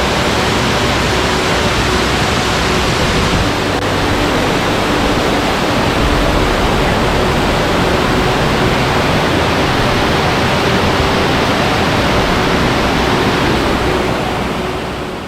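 Waterfall: a loud, steady rush of falling water that fades out near the end.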